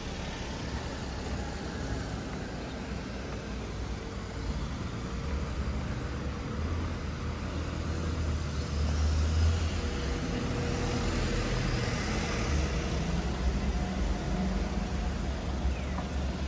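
Low rumble of a large motor vehicle, swelling about a third of the way in and loudest around the middle, over a steady background hum.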